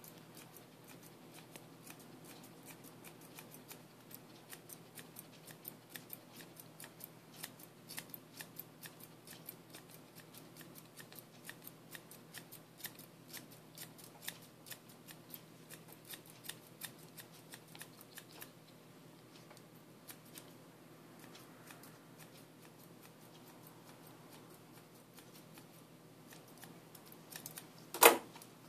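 Grooming scissors snipping a Cairn terrier's coat: quick metallic snips, several a second, that thin out to occasional cuts after about 18 seconds. Near the end comes one much louder short sharp sound.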